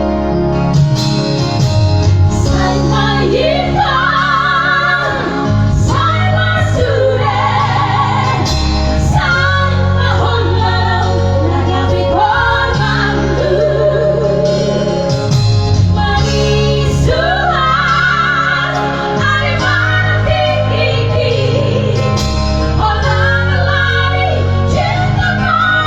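A woman singing a Batak song with a wavering vibrato over instrumental backing with a steady bass line.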